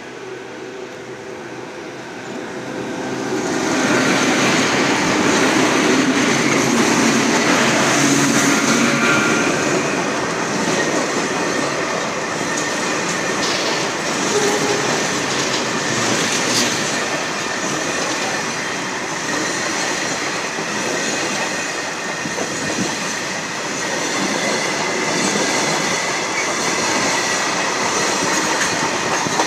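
Indian Railways electric locomotive and its goods train passing close by at speed. The sound swells as the locomotive reaches the trackside about four seconds in, then holds as the steady, loud running noise of the freight wagons' wheels on the rails.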